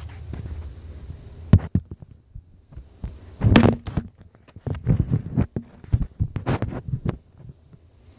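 Handling noise on a phone's microphone: irregular knocks, bumps and rubbing as the phone is moved about and set in place, the loudest bumps about one and a half and three and a half seconds in.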